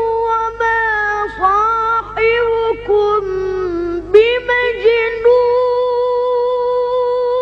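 A young reciter's high voice chanting the Quran in melodic tajweed style. Long held notes are ornamented with wavering turns and slides, with short breaks for breath or new phrases about a second, two seconds and four seconds in.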